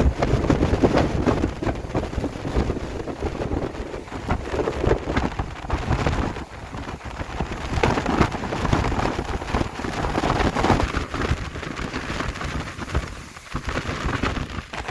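Heavy cyclone rain and gusty wind, a dense steady rush that swells and dips with the gusts.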